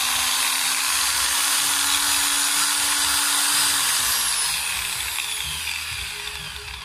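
A cheap generic electric angle grinder runs with no load, a steady motor whine. It is switched off about four seconds in and winds down, the pitch falling away. The grinder spins freely but has lost its power for cutting metal.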